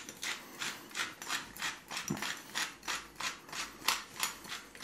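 Hand-twisted pepper mill grinding pepper, a steady run of short ratcheting scrapes at about three a second, stopping near the end.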